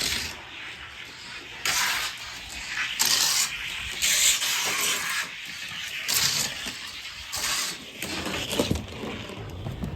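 Die-cast Chevy Bel Air toy car rolling down a long gravity track: a continuous rolling rush that swells louder every second or so.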